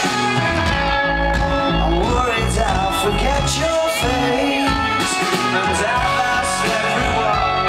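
Rock band playing live: electric guitars, bass and drums, with a male voice singing over them.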